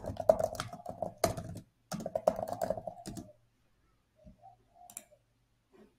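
Typing on a computer keyboard: a quick run of key clicks for about three seconds, then it stops.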